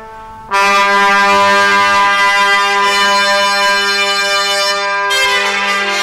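Brass music: a loud held brass chord comes in about half a second in and moves to a new chord around five seconds in.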